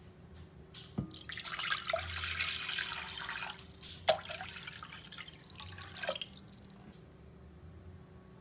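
Cold water poured from a glass measuring jug into an empty pot: a heavy splashing pour for the first couple of seconds, then a lighter pour that stops about seven seconds in. A single sharp knock about four seconds in.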